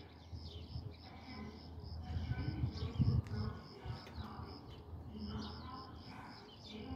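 Outdoor ambience: a high chirp repeating evenly about three times a second, with scattered bird chirps and a low rumble that swells about three seconds in.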